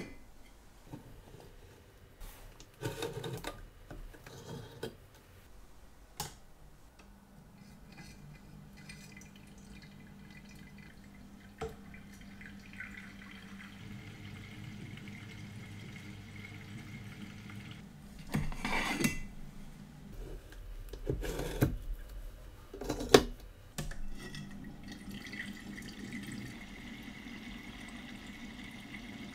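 Elma watch-cleaning machine running: after a few knocks and clinks of the basket and glass jars, its motor starts a steady hum about seven seconds in as the mesh basket spins in cleaning fluid inside a glass jar, with sloshing. There are louder clunks a little past the middle.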